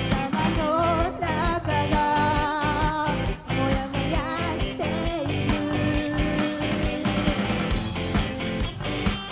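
Rock band playing live: drums, bass and electric guitars, with a wavering lead melody over them in the first half.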